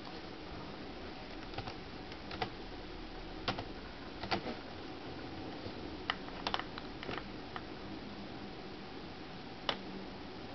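Keys on the small keyboard of a NorhTec Gecko Edubook netbook pressed one at a time: about fifteen scattered, separate clicks, a few in quick pairs, as numbers are typed into a spreadsheet.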